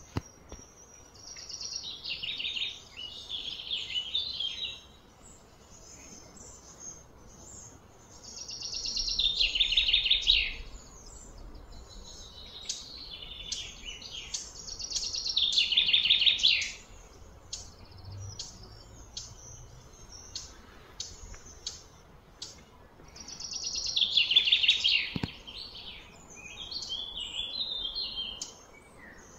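Birds singing: several loud bursts of rapid high chirping, each a few seconds long, repeating every six to eight seconds, with scattered shorter chirps between them. A single faint knock sounds near the end.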